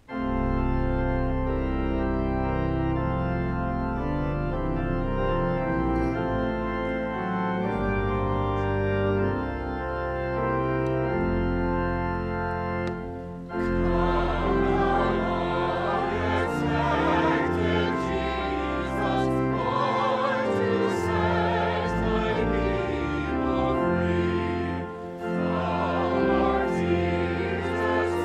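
Pipe organ plays a hymn introduction in held chords with a deep pedal bass, starting abruptly; about halfway through, the choir and congregation come in singing the hymn over the organ.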